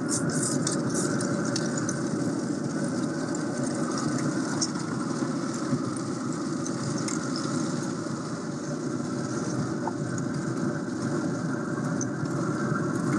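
Steady mechanical hum of a Pit Boss pellet grill's fan running, with faint crackling from sizzling bacon and scattered light clicks of metal tongs on the wire rack as the strips are flipped.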